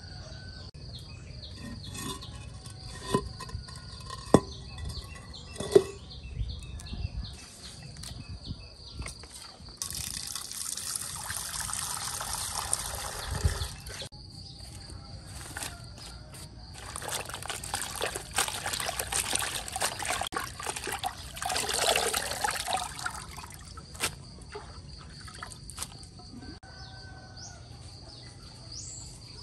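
Water from an outdoor standpipe tap running into a plastic basin, in two runs of several seconds each, the second longer and louder. A few sharp knocks of things being handled come before the water.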